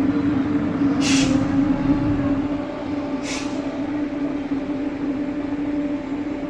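Electric multiple unit standing with a steady hum from its running equipment. Two short hisses of air release come about a second and three seconds in.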